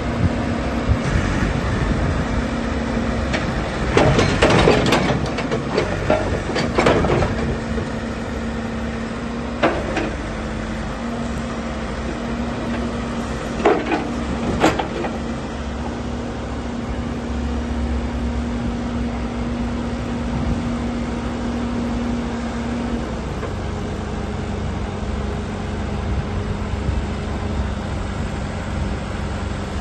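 Komatsu 266D backhoe loader's diesel engine running steadily, with a cluster of sharp knocks about four to seven seconds in and a few more around ten and fourteen seconds. The engine's steady tone changes about three-quarters of the way through.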